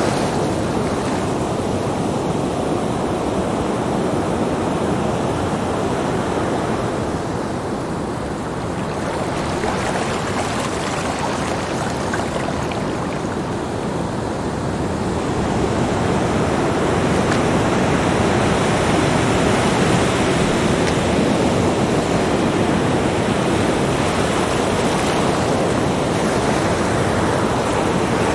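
Small surf breaking and washing up a sandy beach: a continuous rush of waves that eases twice in the first half and swells fuller in the second.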